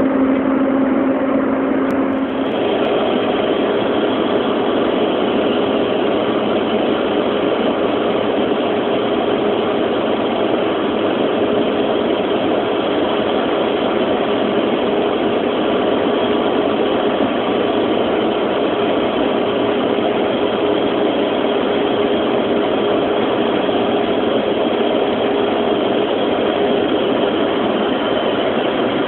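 Cabin noise of a Cessna Citation II jet on its landing approach: its twin turbofan engines give a steady rush with a humming tone, and the pitch of the hum shifts about two seconds in.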